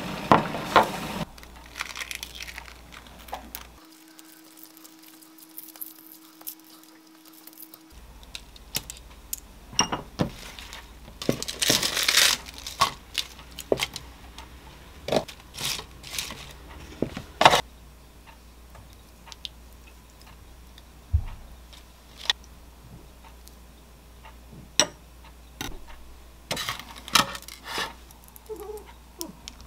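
Kitchen counter handling sounds: scattered light clicks, clinks and knocks of dishes and utensils being set down, with rustling of food being handled, the loudest knocks coming a little before the middle and again near the end.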